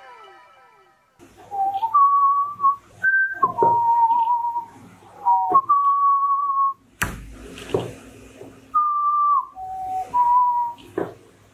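A short tune whistled in steady held notes that step up and down in pitch, broken by several sharp knocks and taps, the loudest about seven seconds in.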